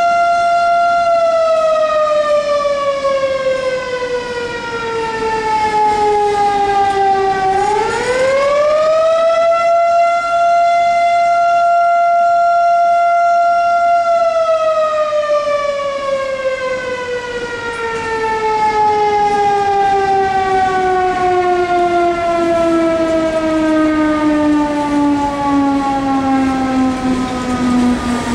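Mechanical outdoor warning siren sounding a steady wail that winds down in pitch, spins quickly back up to full pitch about eight seconds in, holds, then winds down slowly again over the second half.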